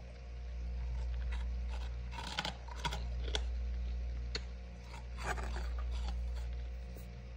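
Short crisp crunches and scrapes of hard freezer frost, a cluster of them about two to three seconds in and a few single ones later, over a steady low hum.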